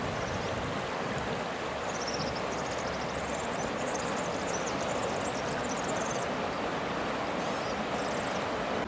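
Steady rushing of the swollen, fast-flowing floodwater of the Guadiana river.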